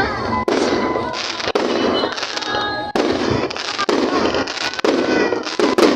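Aerial fireworks going off in a rapid, irregular series of sharp bangs, with crackling noise between the reports.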